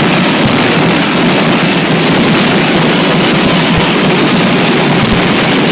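Fireworks finale: a dense, unbroken barrage of bangs and crackling, very loud throughout.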